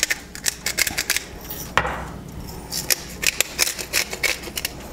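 Handheld salt or pepper grinder being twisted over salmon fillets: runs of quick, dry clicking grinds, with one louder knock about two seconds in.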